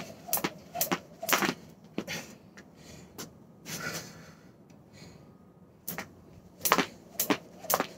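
Jump rope slapping a wooden porch deck with each turn, about two strikes a second. The rhythm breaks off about two seconds in, and after a pause the strikes start again near the end.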